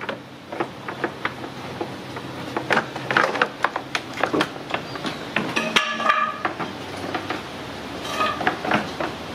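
Plastic radiator cooling-fan shroud of a Dodge Dart being wiggled and pulled up out of a cramped engine bay, with irregular clicks, knocks and scraping as it rubs against the radiator and surrounding parts.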